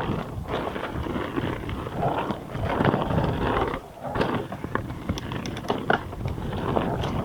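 Full-suspension mountain bike riding down a dirt trail: tyres rolling over rough ground and roots, with many short knocks and rattles from the bike as the suspension takes the hits.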